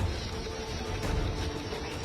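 Background music with held, steady notes over a dense low rumble.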